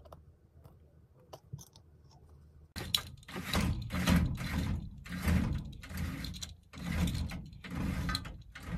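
A few faint clicks from handling a medicine box, then a window blind being pulled down by its cord in a run of repeated strokes, about one and a half a second, starting about three seconds in.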